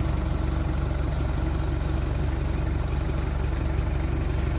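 A diesel 4x4's engine idling steadily: an even low rumble with no revving.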